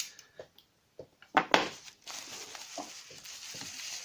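Packing material being unwrapped by hand: a few small clicks and knocks, then crackling, crinkling rustle that carries on from about a second and a half in.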